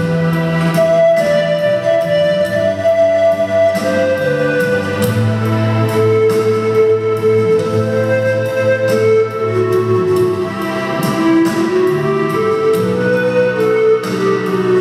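Pan flute playing a melody of long held notes over an accompaniment of low sustained notes.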